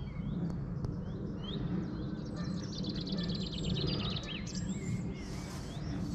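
Small birds chirping, with a fast trill lasting a second or two in the middle, over a steady low rumble.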